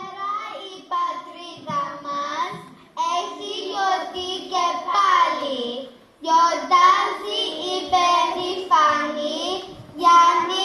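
A group of young children singing together into microphones, in phrases with short breaks about three and six seconds in.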